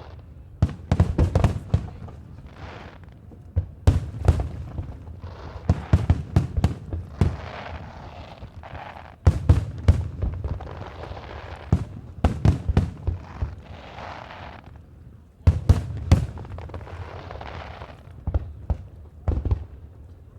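Aerial fireworks display: shells bursting in quick clusters of sharp, deep bangs every couple of seconds, with a rushing hiss between the volleys.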